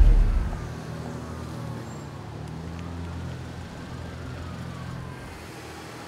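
Faint police siren wailing, its pitch rising and falling slowly, over a low steady hum.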